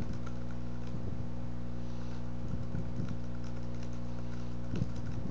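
Steady electrical hum, a stack of even tones that does not change, with a few faint clicks scattered through it.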